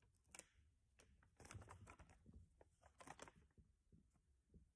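Faint rustling and crinkling of sheets of paper being handled, in three short spells.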